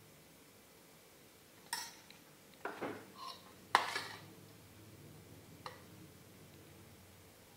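Metal spoon clinking and knocking against enamel batter bowls as cake batter is scooped and spooned out. About six short, sharp clinks, the loudest about halfway through.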